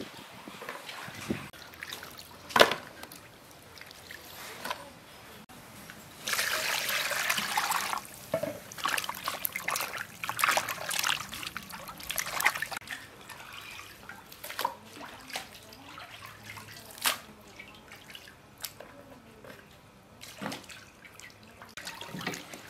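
Raw beef being washed by hand in a stainless steel bowl of water: water sloshing and splashing as the pieces are handled, with a sharp knock about two and a half seconds in and a steadier rush of water for about two seconds starting around six seconds in.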